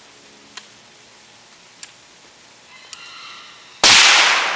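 A single rifle shot about four seconds in, sudden and loud, with a tail that fades over about a second. A few faint ticks come before it.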